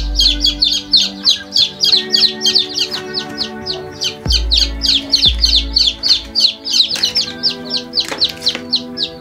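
Young chicks peeping non-stop, many short high peeps that each fall in pitch, crowding over one another. Background music with held notes and a low bass sits underneath.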